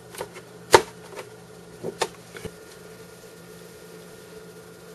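A handful of sharp clicks and taps in the first couple of seconds, the loudest about a second in, from handling the HTC HD2 phone as its microSD card is put back in. A steady low electrical hum runs underneath.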